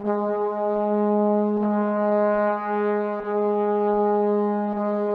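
Intro music: one long held note with a rich, brass-like tone, steady in pitch, over a soft low beat a little more than once a second.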